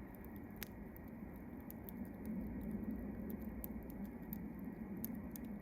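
Wood campfire crackling, with many small, sharp pops and snaps at irregular intervals.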